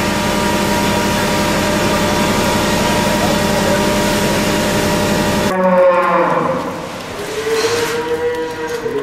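A steady machine hum with even tones for about five and a half seconds cuts off abruptly, then cattle moo: two long calls, the second one long and arching in pitch.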